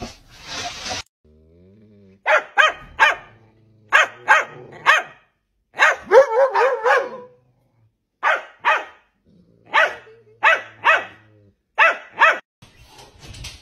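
Corgi barking in quick clusters of two to four sharp barks, with a longer run of barks blending into a growl about midway.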